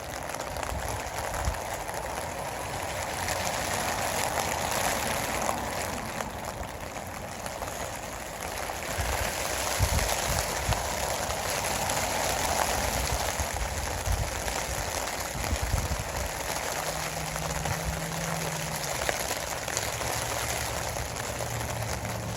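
Steady rain falling in a thunderstorm, an even hiss of drops with a few faint low knocks.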